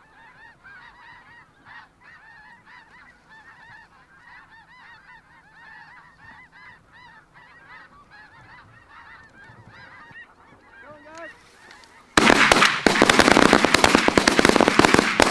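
A large flock of snow geese calling: a dense, overlapping chatter of many short, high honks. About twelve seconds in, a sudden volley of shotgun fire from several guns breaks out, with shots in quick, overlapping succession to the end. It is much louder than the geese.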